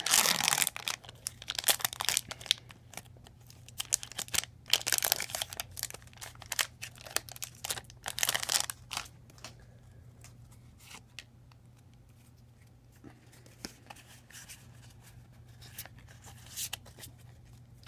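Foil wrapper of a Pokémon trading card booster pack being torn open and crinkled by hand, with loud tearing and crackling for the first nine seconds or so. After that come fainter rustles and a few light clicks as the cards are handled.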